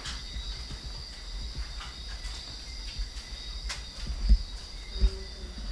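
Steady high chirring of night insects such as crickets, with a low rumble underneath and two short low thumps about four and five seconds in.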